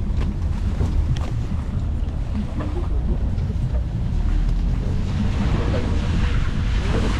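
Wind buffeting the microphone over a steady low rumble from a moving truck, with a hiss that grows a little past halfway.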